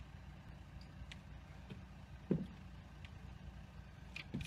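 Faint steady low rumble with a few light clicks and one dull thump about two seconds in.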